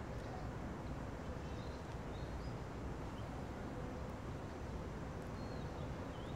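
Outdoor ambience: a steady low rumble and hiss with a few faint, short high bird chirps scattered through it.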